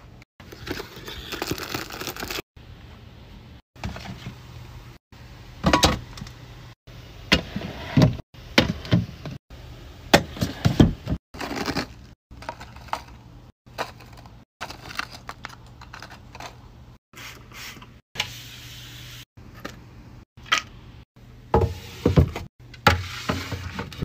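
Handling sounds of nail supplies being packed into plastic storage baskets: scattered knocks and thuds with rustling. The sound breaks off abruptly every second or so.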